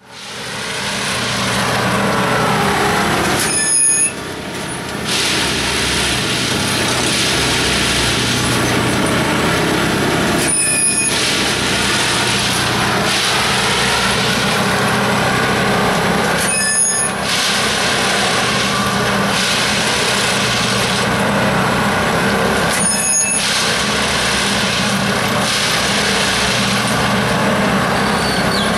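Railway track tamping machine at work: its engine runs steadily under a loud clattering mechanical noise from the tamping units. The noise dips briefly about every six seconds as the work cycle repeats.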